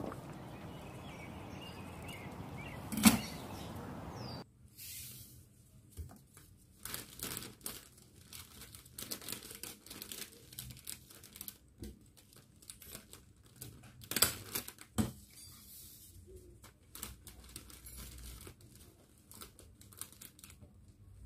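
Clear cellophane wrapping crinkling and rustling in scattered bursts as a bouquet is handled and wrapped by hand, louder around the middle. A steady hiss fills the first four seconds and stops abruptly, with one sharp click just before that.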